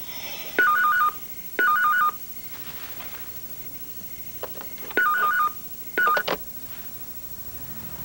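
Rapid electronic beeps alternating between two pitches, in four short bursts of about half a second each, every burst opening with a sharp click.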